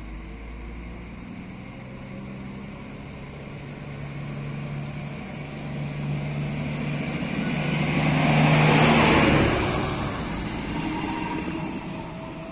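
Diesel railcar (Koleje Dolnośląskie SA135) running along the platform past the camera. Its engine hum and wheel noise grow louder to a peak about nine seconds in, then ease off, with a thin high whine that drops in pitch as it passes.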